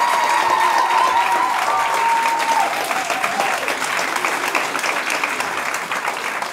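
Audience applauding, with a few drawn-out cheers in the first two or three seconds; the clapping slowly dies down toward the end.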